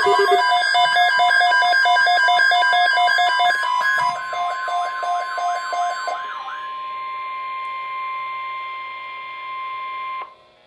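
NOAA Weather Radio warning alert tone, a single steady high beep. For the first six seconds it is overlaid by a rapidly pulsing, warbling electronic alarm. The tone cuts off sharply near the end, leaving faint static.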